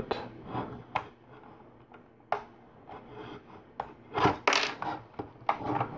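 Plastic LEGO pieces clicking and rubbing as they are handled and pressed together: scattered sharp clicks, with a louder clatter of several clicks about four and a half seconds in.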